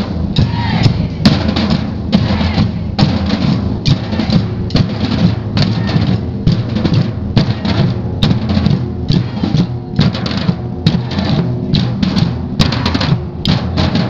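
Samba drum band playing surdo bass drums and other stick-struck drums in a steady, driving rhythm with many strokes a second.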